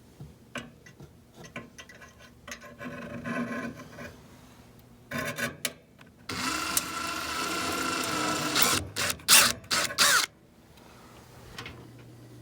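Clicks and scraping of handling, then a small handheld power tool runs steadily for about two and a half seconds and in several short bursts, clearing the rust-clogged port of a furnace pressure switch.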